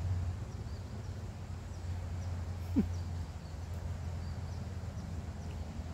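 Outdoor ambience: a steady low rumble with faint bird chirps. About three seconds in there is one short, quick rising squeak.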